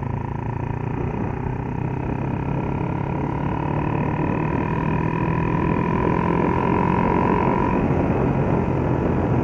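Honda XRM Fi motorcycle engine with a 57 mm bore kit running hard at steady speed on a speed run, getting gradually louder, with wind rushing over the microphone. A steady high whine sounds over it and fades out near the end.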